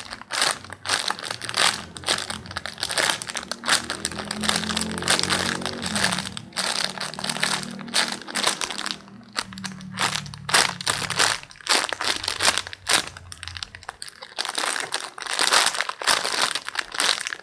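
Plastic packaging crinkling and crackling irregularly as a squishy toy in its bag is handled.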